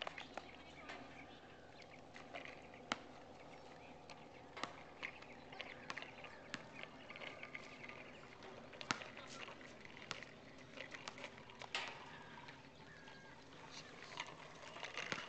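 Faint outdoor ambience with a handful of short, sharp clicks scattered through it.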